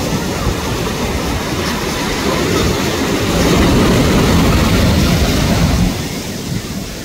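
Wind buffeting the microphone over the wash of surf, a loud low rumble that eases about six seconds in.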